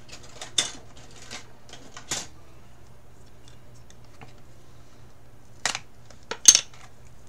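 Plastic watercolour paint set case being handled and turned over: a few sharp plastic clicks and knocks, two close together near the end being the loudest.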